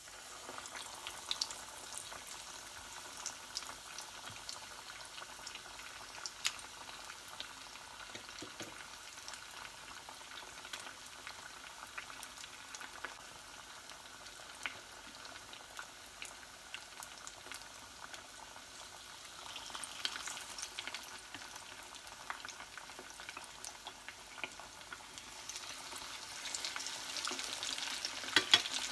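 Corn-chip-crumbed chicken cordon bleu shallow-frying in hot oil in a small pan: a steady sizzle with scattered small pops and crackles. It starts suddenly as the chicken goes into the oil and grows louder near the end.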